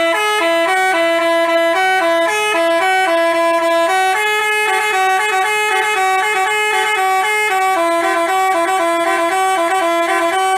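Telolet bus musical horn of the Basuri type playing a quick tune of short, rapidly changing notes.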